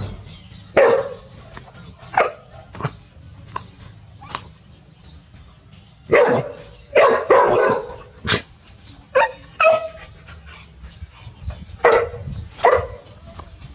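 Dogs barking in alarm at a snake: about a dozen short, sharp barks at irregular intervals, several coming close together a little past the middle.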